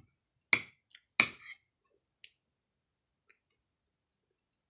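Metal fork and spoon clinking against a plate: two sharp clinks about half a second and a second in, then a few faint taps.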